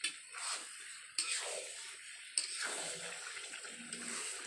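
Spatula stirring chicken curry in a kadhai (wok-style pan) over the heat: several scraping strokes against the pan over a frying sizzle, as freshly added chicken masala is mixed in.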